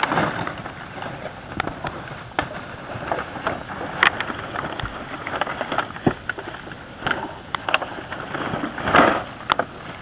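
Irregular rustling and crackling with scattered sharp clicks, and a louder burst of rustling about nine seconds in.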